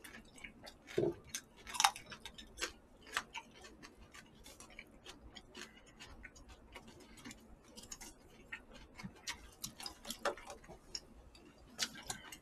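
Irregular small clicks and taps, with louder ones about two seconds in and again near the end: chopsticks picking at jokbal (braised pig's trotters) in plastic takeout containers.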